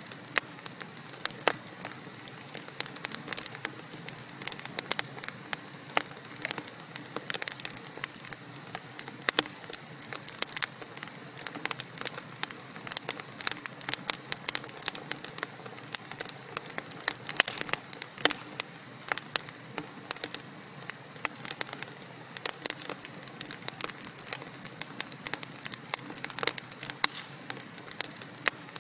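Wood fire burning in a fireplace: logs crackling with frequent irregular sharp pops and snaps over a soft steady hiss.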